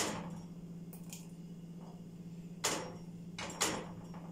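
A spoon scraping and knocking against a stainless steel pot as thick strawberry jam is stirred, a few short sharp strokes over a steady low hum.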